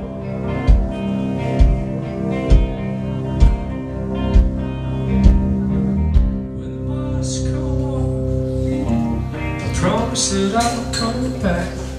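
Live band music: held keyboard and guitar chords over a kick-drum beat about once a second. About six seconds in the beat drops out while the chords ring on, and a busier, hissier section with shifting pitches follows.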